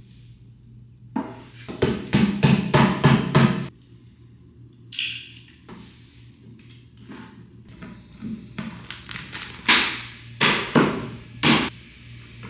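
Hammer tapping on flat-pack desk panels. A quick run of about half a dozen knocks comes a second or so in, a short scrape near the middle, and another four or five knocks near the end.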